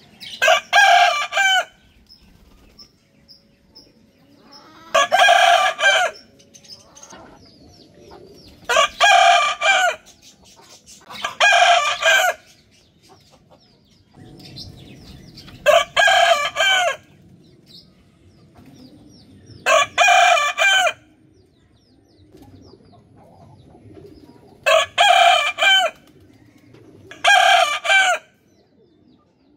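Rooster crowing, eight loud cock-a-doodle-doo calls of about a second each, spaced two to five seconds apart.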